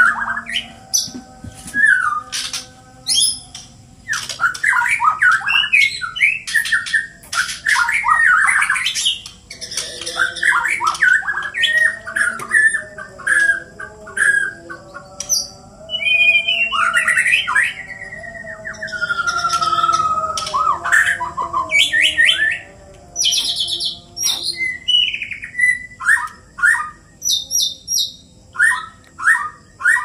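Two caged white-rumped shamas (murai batu) singing against each other in a competitive bout: fast, varied phrases of whistles, harsh squawks and clicking notes, broken by short pauses.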